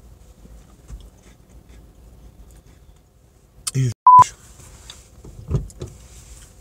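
Quiet chewing of a mouthful of cinnamon roll, then about four seconds in a brief mumble cut off by a short, loud, single-tone beep, a censor bleep over a word. A low 'mm' follows near the end.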